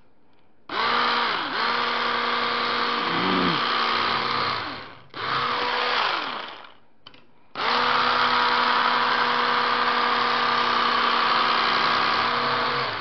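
Electric knife running as it saws through a loaf of whole wheat bread: a steady motor hum with a fixed pitch, switched on three times, its pitch falling briefly each time it stops. The longest run is in the second half.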